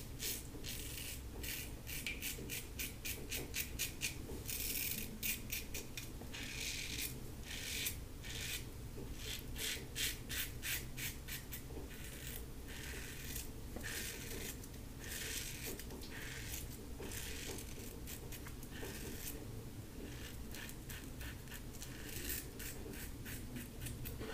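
LASSCo BBS-1 stainless steel safety razor with a Gillette Silver Blue blade scraping through lathered stubble in many short strokes on the jaw and neck. This is the final pass, against the grain.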